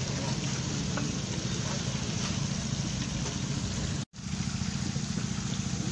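A steady, low motor drone with a hiss over it, like an engine running; the sound cuts out for a moment about four seconds in.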